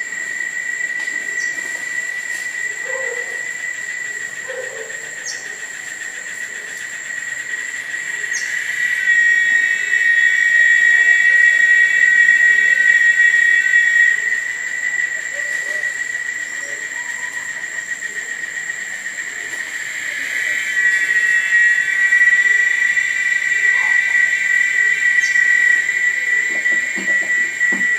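Tropical forest ambience at dusk: a steady, high-pitched insect drone, swelling into a louder chorus about a third of the way in and again in the second half. A few short bird chirps break in now and then.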